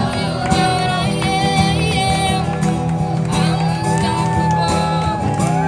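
Live music with a voice singing over a steady, sustained low accompaniment.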